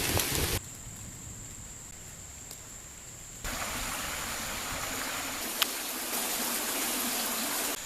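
Steady rushing of a mountain creek, mixed with falling rain. The level drops abruptly about half a second in and rises again about three and a half seconds in, with a single click partway through.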